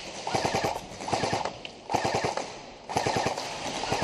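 Airsoft guns firing on full auto in several short bursts of rapid clicking shots, about one burst a second.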